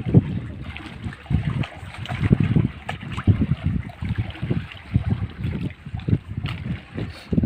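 Wind buffeting the microphone on a boat at sea, in uneven low gusts over a hiss of wind and water.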